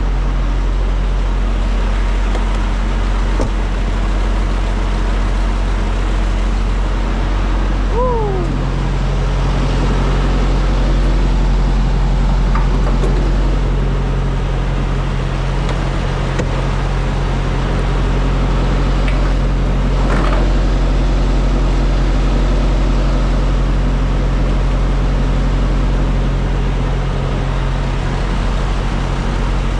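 Diesel semi-truck engine running steadily. About eight seconds in there is a short falling tone, and the engine note steps up.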